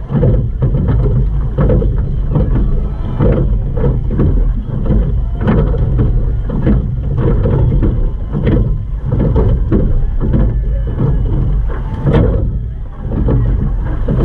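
Choppy water slapping and splashing against the bow of a rowing shell under way, in frequent uneven splashes over a heavy rush of water and wind on the microphone.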